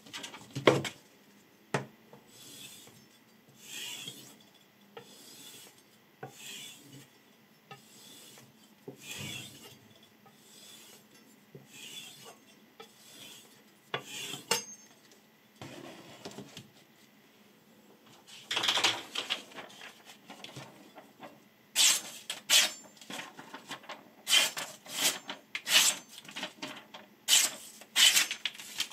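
Steel kitchen knife blade drawn in even strokes along a handheld strop, about one stroke a second, the edge being polished. In the latter part, the sharpened knife slices through sheets of paper in a run of sharp, crisp cuts.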